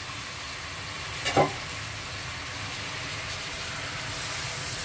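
Chicken and potatoes sizzling steadily as they fry in an aluminium pot on a gas burner, before water is added. One short, sharp sound comes about a second in.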